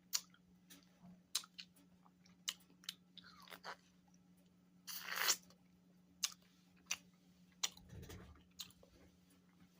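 A person biting into and chewing a frozen strawberry fruit bar: irregular sharp crunches, with a longer crunch about halfway through, over a faint steady hum.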